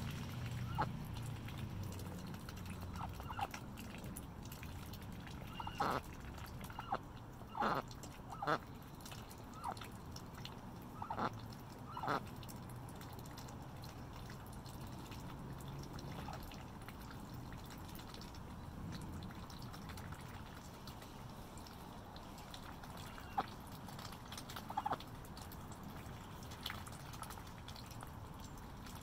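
Ducks dabbling in wet mud: short, sharp, wet bill-slurping and smacking sounds, in a quick run during the first half and a few more near the end.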